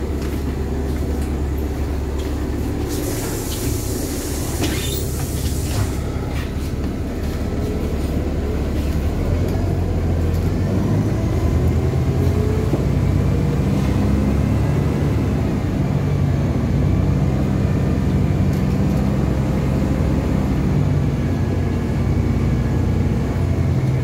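LiAZ-5293.60 city bus heard from inside: its diesel engine runs steadily, a hiss of compressed air lasts about three seconds a few seconds in, then the engine note rises as the bus pulls away and gathers speed.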